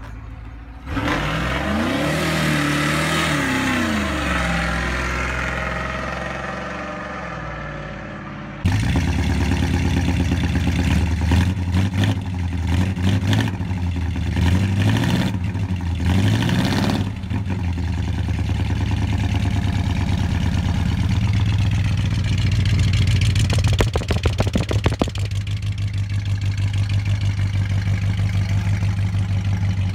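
A car engine revving up and down with a hiss over it for several seconds. Then, after a cut, an old Ford flathead V8 with straight pipes runs: revved in several quick blips, then idling with an even, rapid throb and one short rev about 24 seconds in.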